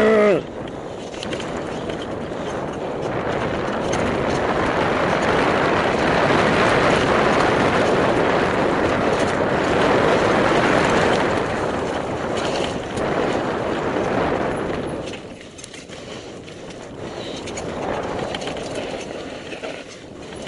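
Rushing noise of a mountain bike ridden fast down a trail: wind and tyre-on-dirt noise on the rider's camera microphone. It grows louder over the first few seconds and stays strong until about fifteen seconds in, then drops away and comes back more weakly.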